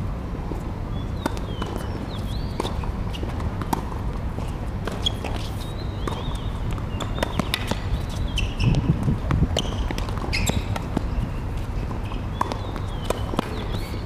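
Tennis rally on a hard court: racket strikes and ball bounces make a run of sharp, irregular knocks over a steady low rumble.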